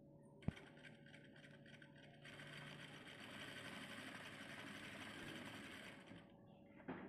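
Sewing machine stitching a seam through cloth: a sharp click about half a second in, then slow pulsing stitches that pick up to a steady run for about four seconds before stopping.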